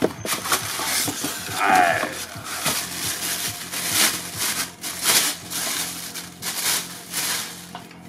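Clear plastic wrapping crinkling and rustling in irregular bursts as it is handled and pulled off a new air rifle, with a short falling squeak about two seconds in.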